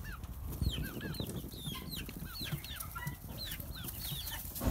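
Young chicks peeping repeatedly: short, high chirps that each fall in pitch, about three or four a second.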